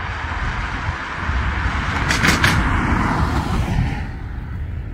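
Jet airliner engines heard passing, swelling to their loudest about two seconds in, with two short clicks at the peak, then fading. Wind rumbles on the microphone underneath.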